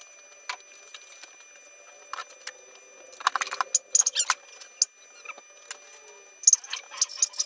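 Metal hand tools and parts clinking and rattling as a two-stroke motorcycle is taken apart, with scattered sharp clicks and two clusters of quick clicks, about three seconds in and again near the end.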